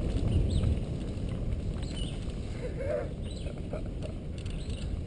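Mountain bike rolling down a dirt forest trail: a steady low rumble of tyres on the ground, with scattered clicks and rattles from the bike over roots and bumps.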